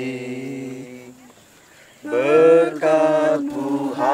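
A voice slowly singing an Indonesian Christian worship song, with long held notes. The first note fades into a short pause about a second in, and the singing starts again about two seconds in.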